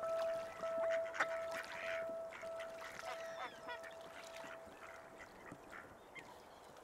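Waterfowl calling with scattered short calls, over a held musical tone that pulses slightly and fades out about five seconds in.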